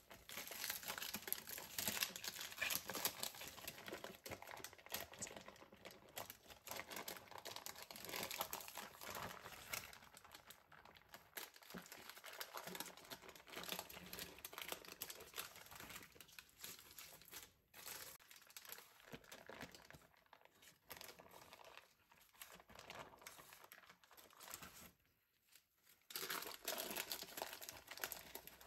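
Baking parchment crinkling and rustling under hands as dry, crumbly baked almond cake layers are handled and lifted on it. After a brief lull near the end, the paper is crumpled more loudly.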